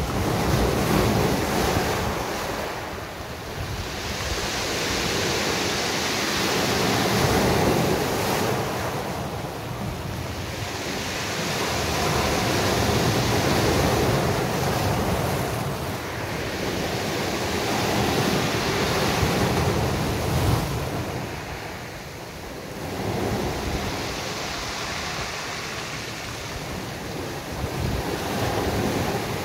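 Sea waves breaking on a beach, the surf rising and falling in surges about every six seconds. Wind buffets the cellphone microphone with a low rumble.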